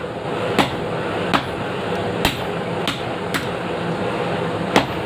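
Blacksmith's hammer striking metal during kris forging: six sharp, unevenly spaced blows with a brief metallic ring. The last blow comes after a pause of about a second and a half, near the end. A steady hum runs underneath.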